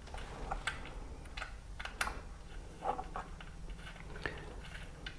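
Scattered light clicks and taps of fairing bolts and plastic motorcycle fairing panels being handled and fitted, over a faint steady low hum.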